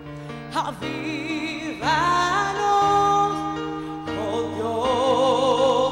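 Live gospel worship music: a woman sings into a microphone with wide vibrato over held chords from the band, the chords changing every second or so.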